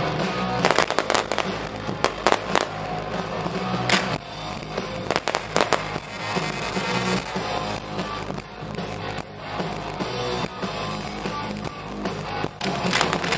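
Fireworks going off, a run of sharp bangs and crackling that thins out midway and picks up again near the end, over background music.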